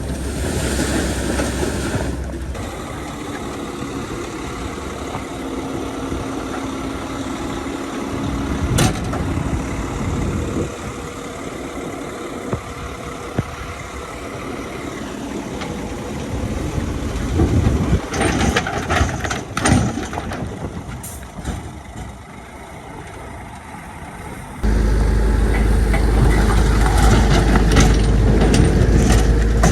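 Diesel engines of heavy earthmoving machinery running, with scattered sharp clanks and knocks. The sound changes abruptly twice, once a couple of seconds in and again near the end, where a louder, deeper engine drone takes over.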